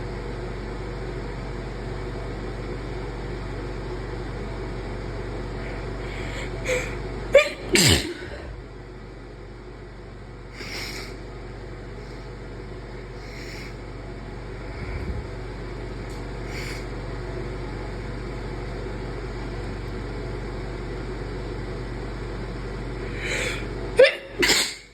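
A person sneezing twice, induced sneezes: one about a third of the way in and one near the end. Each is a sudden loud burst led by a few quick catching breaths. A few short breath sounds come in between, over a steady background hum.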